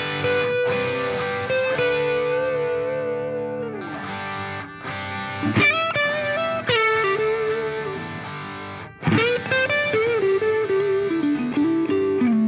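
Background music: a distorted electric guitar plays a lead melody of long held notes that bend and slide in pitch.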